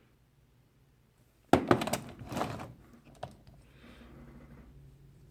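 Pocket knives being handled and set down: a sudden clatter of knocks and clinks about a second and a half in, then a single click a little later, with faint rustling after.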